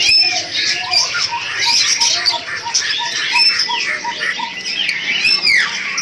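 Many caged birds calling at once in a bird market: overlapping chirps, squawks and whistled notes. One bird repeats a short note about three times a second from about a second in until past the middle.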